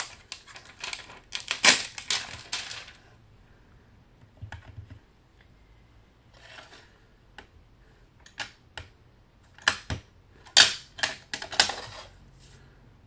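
Clicks, taps and plastic rustling from handling clear acrylic stamps, a stamping block and their plastic packaging: a burst of clicking and rustling in the first three seconds, a quieter stretch with a few light ticks, then another run of sharp clicks from about eight seconds in.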